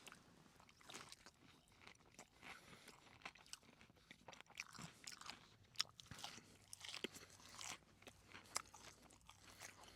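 A person chewing a bite of a fried chicken tender with butter chicken sauce, close to the microphone: faint, irregular crunches and wet chewing sounds.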